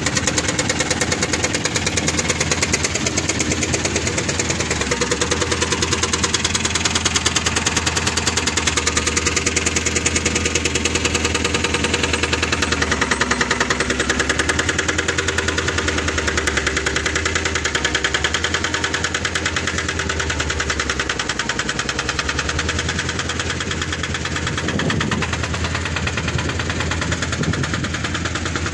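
Caterpillar 320L hydraulic excavator's diesel engine running steadily with a rapid, even pulsing. Its note dips and recovers briefly a couple of times.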